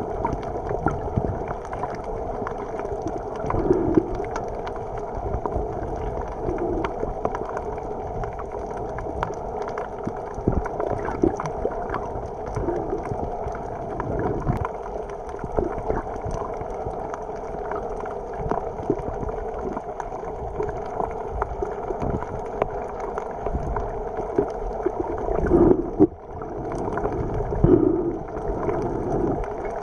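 Underwater ambience picked up by a submerged camera: a steady muffled rush of water with scattered faint clicks and a few louder gurgling swells, two of them near the end.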